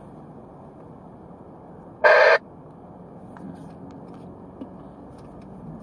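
Wind rushing steadily past the microphone, with one short, loud electronic-sounding beep or horn-like toot about two seconds in.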